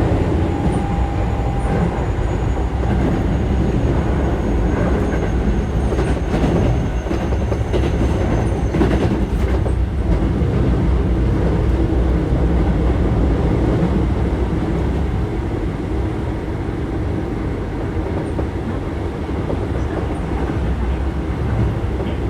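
Keio 7000 series commuter train running, heard from on board: a steady rumble of wheels on rail, with a cluster of clicks over rail joints about a third of the way in. A faint high whine runs through the first half, falling slowly.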